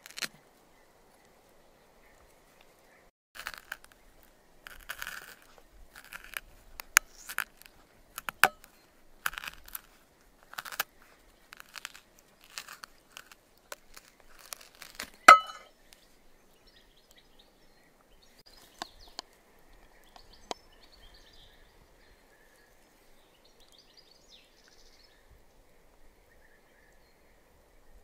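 Peach stones being dug and scraped out of halved peaches with a metal spoon: a run of short scrapes, ending in a sharp click about fifteen seconds in.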